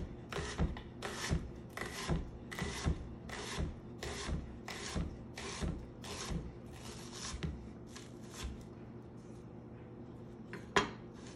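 Chef's knife slicing a red onion into thin strips on a wooden cutting board: a steady run of strokes, each a short slice ending in a knock of the blade on the board, about one and a half a second. The slicing stops about two-thirds of the way in, and a single sharp knock comes near the end.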